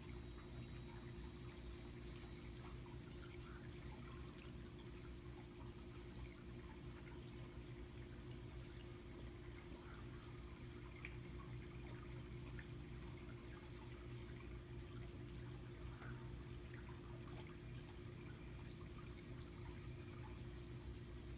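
Faint, steady trickling water over a low, even hum, typical of a swimming pool's circulation pump and filter running.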